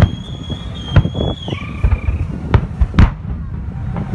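Fireworks salute bursting overhead: sharp bangs about a second apart, the loudest about three seconds in, over a steady low rumble. A high whistle holds through the first second and a half, then slides lower.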